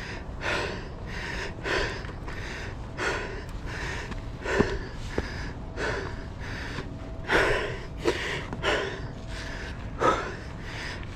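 A mountain biker out of breath from a hard trail run, panting with quick heavy breaths about one every two-thirds of a second, over steady low background noise.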